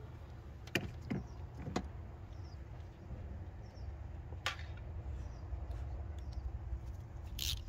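Scattered clicks and taps of a hand tool on metal as Torx screws are worked loose under the car, over a steady low rumble, with a short scrape near the end.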